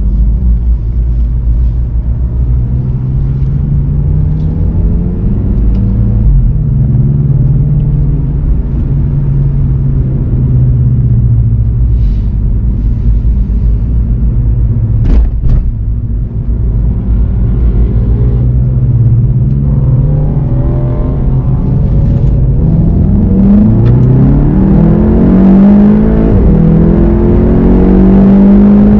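VW Golf 7 GTI TCR's turbocharged 2.0-litre four-cylinder running at low speed in slow traffic, then accelerating hard near the end, its pitch climbing through the gears. A single sharp click about halfway through.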